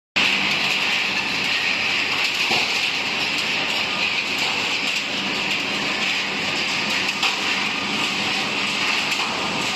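Steady mechanical noise of an ERW welded-pipe tube mill running, an even hissing clatter with no breaks.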